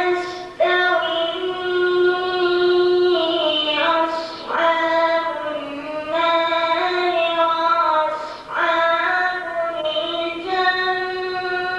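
A boy chanting Quran recitation into a microphone, in the melodic tajweed style: long held, ornamented notes in drawn-out phrases, broken by brief pauses for breath about every four seconds.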